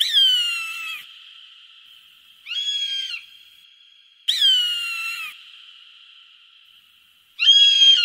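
A hawk screaming four times, each a sharp, ringing cry that slides down in pitch. The first and third calls last about a second and the second is shorter; the fourth starts near the end. A steady high-pitched hum runs underneath.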